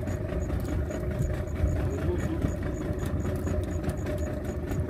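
Boat engine running steadily with a low hum, and a faint high ticking repeating about three times a second.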